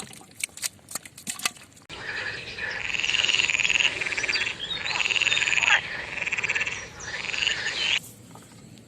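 A few sharp clicks, then loud frog croaking: repeated rapidly pulsed calls that start abruptly about two seconds in and cut off abruptly near the end.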